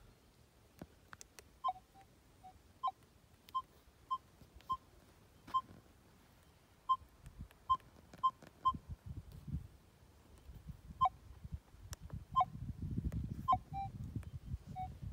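A metal detector's control panel giving short electronic beeps near 1 kHz, one per button press, a dozen or so at irregular intervals, as settings are stepped through. A low rumble comes in during the second half.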